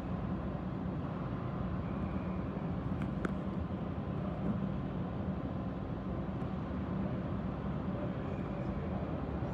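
Steady low rumble of an indoor ice rink's room tone, with one faint click about three seconds in.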